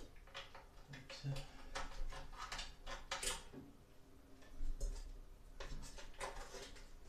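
Scattered small clicks, taps and scrapes of hands fumbling blind inside a sheet-metal bathroom fan-heater housing, feeling for an electrical plug and its receptacle. A dull knock about two-thirds of the way in.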